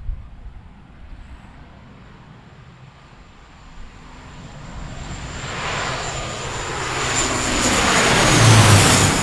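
A regional airliner passing close by: its engine noise builds over several seconds to a loud peak near the end, with a high whine that drops in pitch as it goes past.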